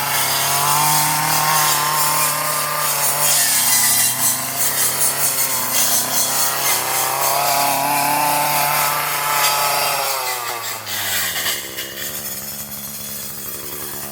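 Gas weed eater's two-stroke engine running at full throttle with a four-sided brush blade cutting through heavy brush, then throttled back about ten seconds in, the pitch dropping to idle.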